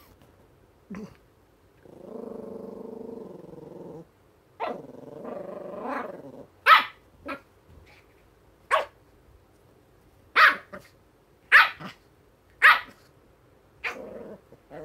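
Staffordshire bull terrier puppy play-growling for a few seconds, then giving about seven short, sharp barks roughly a second apart.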